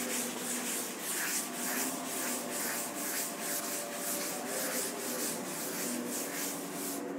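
Board eraser being scrubbed back and forth across a chalkboard, wiping off chalk writing in quick rhythmic strokes, about three a second; the rubbing stops abruptly near the end.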